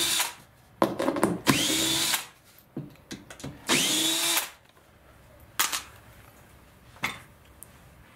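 Cordless drill/driver backing screws out of a wooden crate lid. The motor spins up with a rising whine in short runs of about a second, twice after the tail of an earlier run, then a few light clicks.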